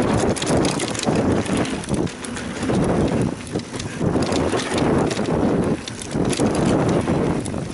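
Mountain bike riding down a rough dirt trail: rolling tyre noise with many sharp clicks and rattles from the chain and frame over bumps, and wind on the microphone.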